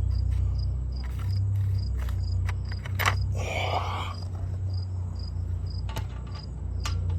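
Crickets chirping steadily, a short high chirp about three times a second, over a steady low hum. A few sharp clicks, and a brief rustle about three seconds in.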